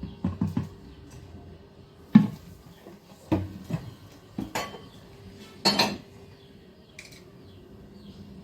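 Dishes or food containers knocking and clinking as they are handled and set down, about five separate clatters spaced unevenly.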